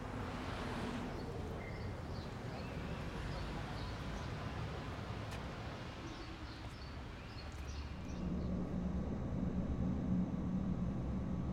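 Outdoor ambience: a low rumble with small birds chirping. About eight seconds in it changes to a louder, steadier low hum.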